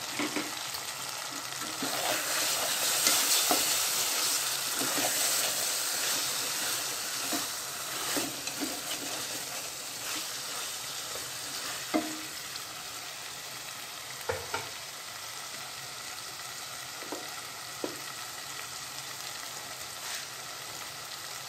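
Chicken pieces and masala sizzling in oil in a pan over high heat, just after tomato has been added, with a steady hiss that is loudest in the first few seconds and then eases. A utensil stirring and scraping through the curry knocks against the pan now and then.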